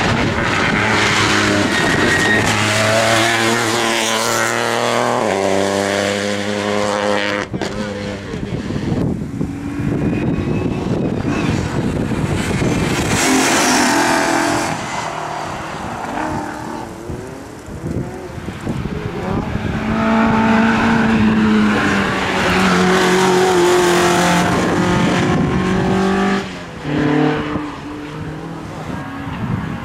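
Race car engine running hard on track, its pitch climbing under acceleration and stepping at gear changes, then dropping off and building again.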